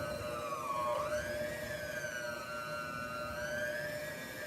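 Electric kitchen mixer motor running in cake batter, a steady whine whose pitch wavers up and down as the beaters meet the load, dipping and then rising sharply about a second in.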